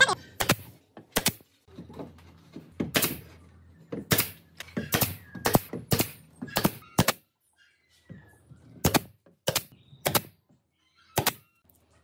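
Workshop knocks: a run of sharp taps and clunks of wooden parts and tools being worked, irregularly spaced and some in quick pairs, with a silent gap about eight seconds in.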